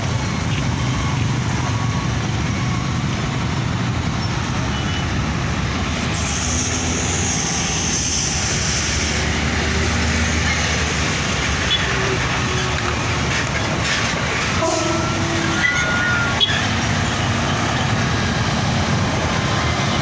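Heavy diesel construction machinery and road traffic rumbling steadily, with a high hiss lasting about three seconds from about six seconds in.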